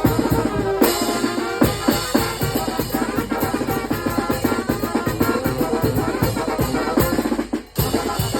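Mexican banda (wind band) playing, with a busy, rapid drum beat under the melody; the music drops out briefly near the end.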